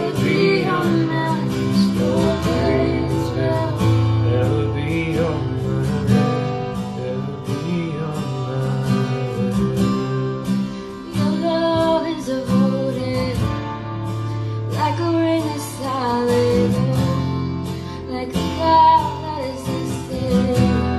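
Acoustic guitar strummed in a slow, steady pattern while a woman sings a melodic line over it.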